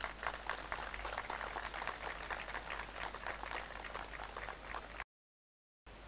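Audience applauding: a dense patter of many hand claps that cuts off abruptly about five seconds in.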